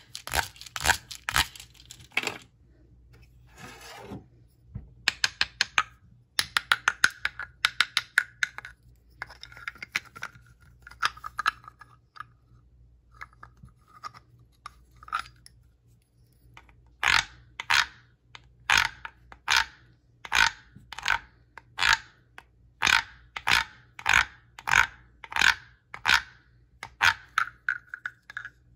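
Wooden frog rasp, a small guiro, scraped with its stick along the ridged back to give croak-like ratcheting rasps. Quick, uneven strokes come in the first half, then a regular run of separate rasps about one every 0.7 s.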